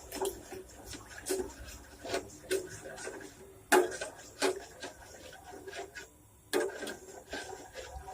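Kitchen utensil scraping and knocking against cookware in irregular strokes, with two louder knocks, one about four seconds in and one near six and a half seconds.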